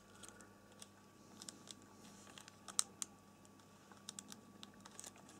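Faint, scattered small plastic clicks and taps from a flat ribbon cable being handled and pushed into a laptop motherboard's connector, with two sharper clicks near the middle.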